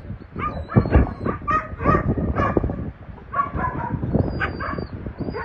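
Dogs barking and yelping, a string of short calls one after another, over a steady low rumble of wind on the microphone.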